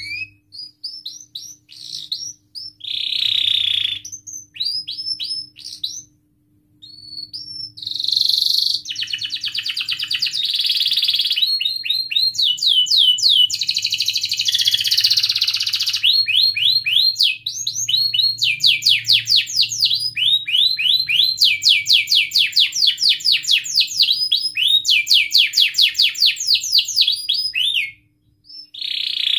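Domestic canary singing a long, loud song: rapid trills of repeated downward-sweeping notes, with buzzy rolls between them and short pauses, stopping briefly near the end before starting again.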